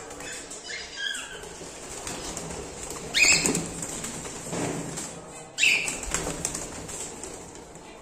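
Cockatiels flapping their wings as they move about the perches in a cage, with two loud, short calls, one about three seconds in and one about five and a half seconds in.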